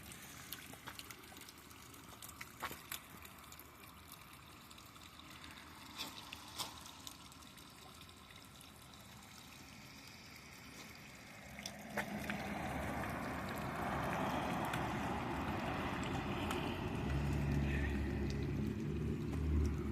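Melting ice dripping and trickling, with scattered small ticks. About twelve seconds in, a louder steady rushing noise with a low rumble comes in.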